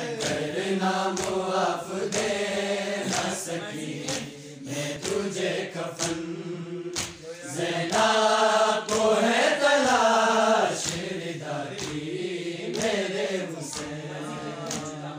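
A group of young men chanting an Urdu noha, a Shia lament, together without instruments, over a regular beat of short strikes. The voices grow louder about eight seconds in.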